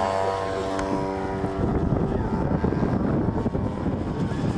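Engine of a radio-controlled model warplane droning steadily as it flies overhead. After about a second and a half the drone fades under gusty wind buffeting the microphone.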